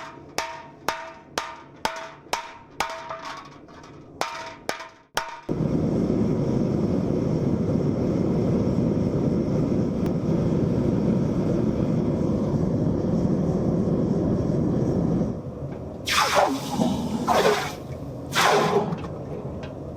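Hammer blows on copper, about two a second, each ringing briefly, for the first five seconds. Then a loud, steady rushing noise starts suddenly and runs about ten seconds, followed by three short hissing surges that fall in pitch.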